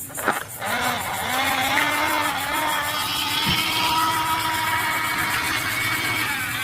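A vehicle's motor starts about half a second in and runs steadily, its pitch rising slightly at first and then holding level.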